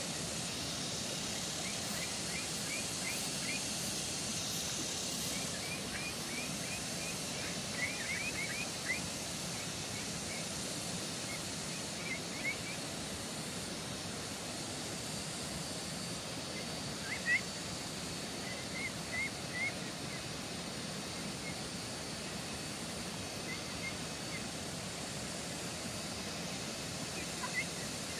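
Rural outdoor ambience: a steady hiss with short, high birds' chirps scattered through it in little runs of two to five, the loudest about seventeen seconds in.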